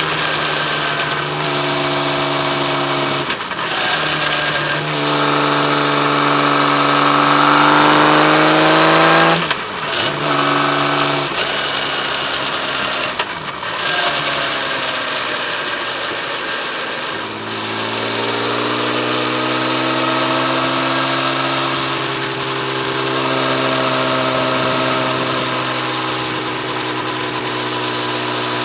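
Kawasaki Z1300's inline six-cylinder engine running under way, its note holding steady, climbing in pitch as it accelerates, and breaking off briefly a few times before settling into a lower, steady note for the second half.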